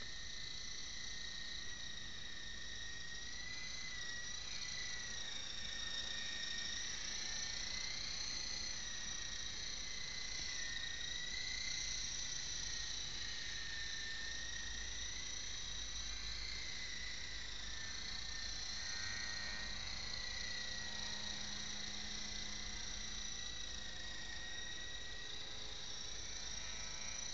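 Small radio-controlled model helicopter in flight, its motor and rotors giving a high, steady whine whose pitch drifts up and down.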